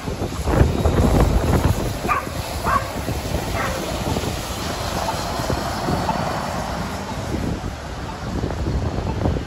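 A heavy vehicle going by: a steady mix of engine and road noise. A dog barks a few times in the first four seconds.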